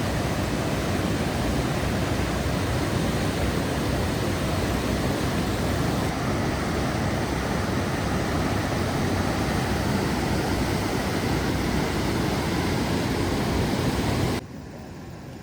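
A steady, loud rushing noise with no distinct tones. It drops off abruptly near the end.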